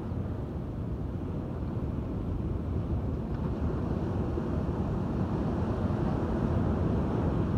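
Ocean surf breaking on a sandy beach, mixed with wind buffeting the microphone: a steady low rumble that grows slightly louder toward the end.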